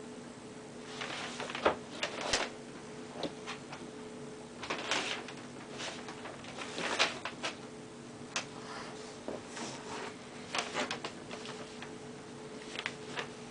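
Trim channel being pushed and slid onto the edge of a pinball backglass: scattered scraping, rubbing and small clicks as it is worked along the edge, over a steady low hum. The trim goes on snug but not super tight.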